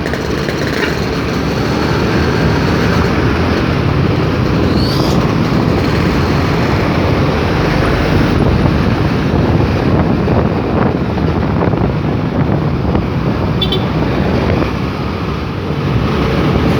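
Steady rumble of vehicles driving on a road: engine and tyre noise with some wind.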